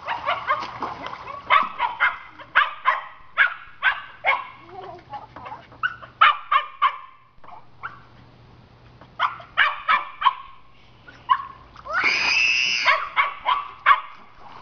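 Small dog barking rapidly in short high yaps, in runs with brief pauses, and one longer drawn-out high cry about twelve seconds in. It is agitated, wanting to get into the pool.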